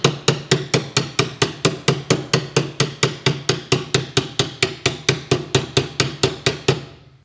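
Rapid hammer blows on the threads of an M12 x 1.5 steel stretch bolt clamped in a vise, metal on metal at about five or six strikes a second. The blows deliberately mash the first few threads to create damaged threads for a repair test. They fade and stop shortly before the end.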